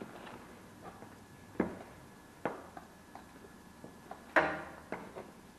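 Red electrical cable being worked through a hole in drywall by hand: scattered light knocks and rustles of cable and hands against the wall, with one louder scraping rustle about four seconds in.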